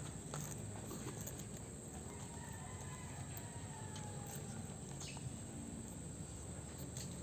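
Metal fork scraping and tapping lightly on a banana leaf, picking up the last noodles in a few faint clicks. A long, faint, distant bird call runs through the middle, sloping gently down in pitch.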